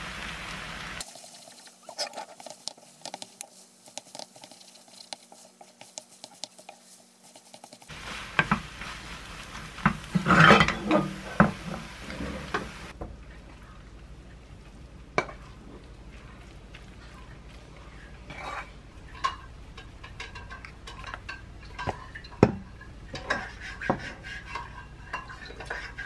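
Stir-frying rice noodles in a nonstick pan: a short sizzle, then a spatula clattering and scraping against the pan, loudest about ten seconds in. Later, lighter taps and scrapes as the noodles are pushed from the pan onto a ceramic plate.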